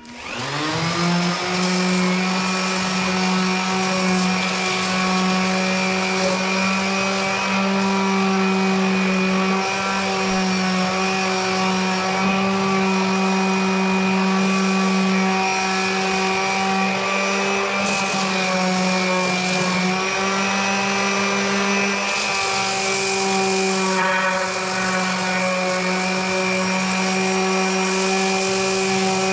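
Electric sander spinning up and then running steadily with a high, even hum. Its pitch sags briefly about two-thirds of the way through, as if pressed harder against the wood.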